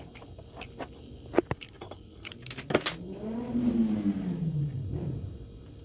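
Sharp clicks and knocks from handling a hot glue gun and setting a board down onto a cardboard base. In the second half comes a low droning tone that rises and then falls in pitch over about two seconds.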